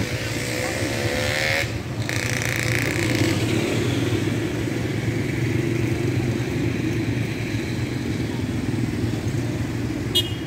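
A motorcycle engine running steadily, rising in pitch briefly at the start. A short clink sounds near the end.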